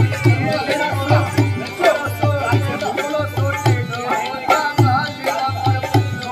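Folk music played live on a dholak and a harmonium: the dholak beats a quick rhythm of deep strokes in groups of two or three under the harmonium's held, reedy chords.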